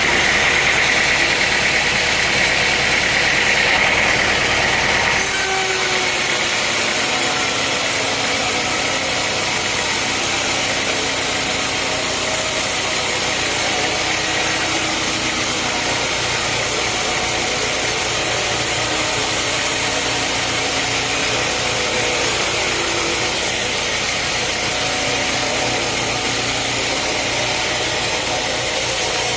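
Sawmill machinery running steadily: an engine's steady hum under the noise of sawing wood. The sound changes abruptly about five seconds in.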